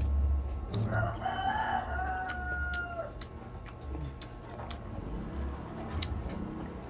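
A rooster crows once about a second in, a single held call of about two seconds. Around it come wet mouth clicks and chewing as rice and kamyas are eaten by hand.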